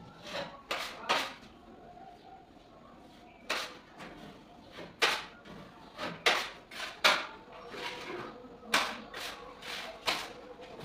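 Putty knife scraping and knocking against a handheld tub of putty and across gypsum ceiling board as filler is loaded and spread: a dozen or so short, sharp strokes at irregular intervals.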